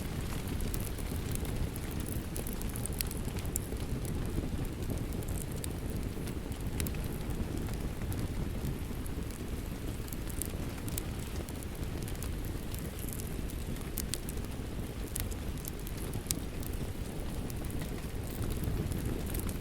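Steady rain mixed with a wood fire burning: an even hiss and rumble with frequent scattered sharp crackles.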